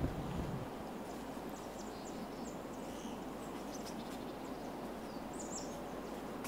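Outdoor ambience: a steady, even hiss with a few faint, short small-bird chirps, the clearest a little past the middle.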